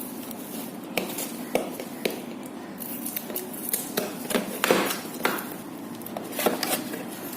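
A speaker's cardboard box and packing being opened and handled: an irregular run of light knocks, taps and scraping rustles.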